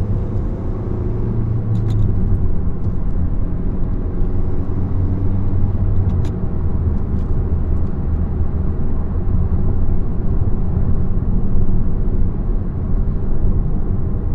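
A 10th-gen Honda Civic Si's 1.5-litre turbocharged four-cylinder, fitted with a PRL Cobra intake, heard from inside the cabin while driving: a steady low drone of engine and road noise. A few faint short ticks sound through it.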